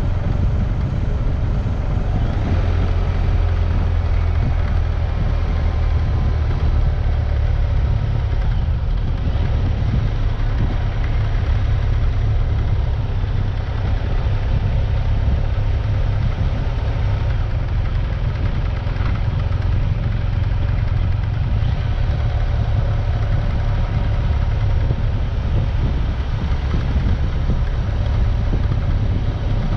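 A vehicle on the move, its engine running with a steady low rumble throughout.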